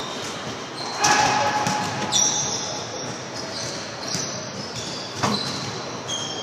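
Court shoes squeaking on a hardwood racquetball court floor, with a sharp knock of the ball about five seconds in.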